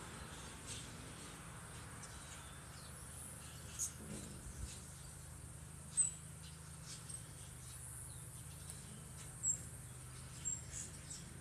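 Hummingbirds giving short, high chips a few seconds apart, the sharpest about halfway through, over a faint steady low hum.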